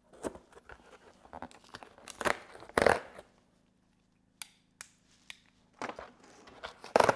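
Cardboard shipping box being opened by hand: packing tape tearing, cardboard flaps scraping and packaging crinkling in irregular bursts, with a short lull about three seconds in and a louder burst near the end.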